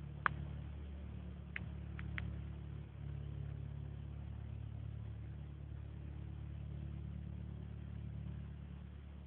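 Distant single-engine light aircraft's piston engine running, heard as a faint, steady low drone. A few brief high chirps come in the first couple of seconds.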